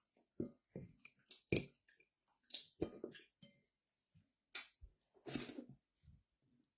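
Close-miked chewing in irregular bursts, with small clicks and clinks.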